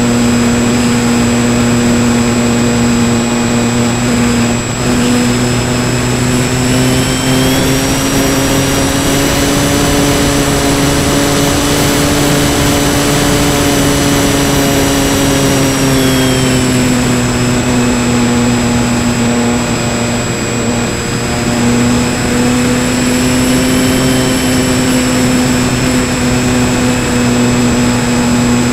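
RC model airplane's motor and propeller running steadily in flight, a droning whine that rises a little in pitch for several seconds in the middle and again briefly near the end, with wind rushing over the wing-mounted camera.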